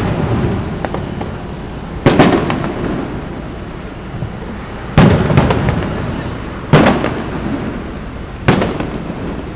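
Fireworks shells bursting overhead: four loud booms, roughly two seconds apart, each trailing off in a rumbling echo.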